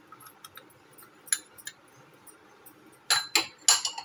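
A steel spoon clinking and scraping against small ceramic bowls as spice powder is spooned out: a few light clicks, then a louder run of clinks a little after three seconds in.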